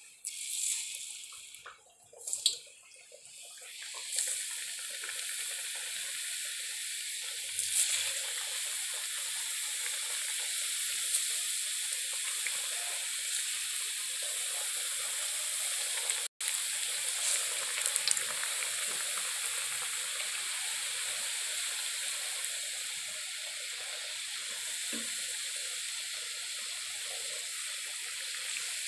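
Rice-flour chekkalu deep-frying in hot oil in an iron kadai: a steady, hissing sizzle that builds over the first few seconds as the discs go in, with a few sharp knocks among them. The sizzle cuts out for an instant about halfway.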